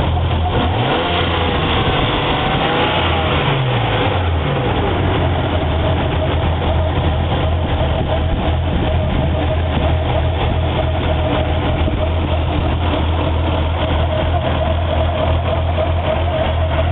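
Nissan RB25DE NEO 2.5-litre straight-six engine idling with a misfire, after its NGK Iridium BKR8EIX spark plugs were swapped for BKR5EIX. The running is steady, with a few brief wavers in pitch in the first few seconds.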